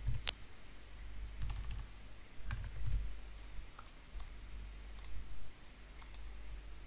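Computer keyboard and mouse clicking: a few keystrokes, then irregular, scattered mouse clicks. There is one sharper click just after the start.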